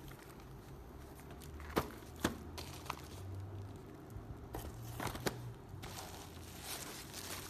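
Packaging being handled: crinkling and rustling with a few sharp clicks and knocks, over a low steady hum.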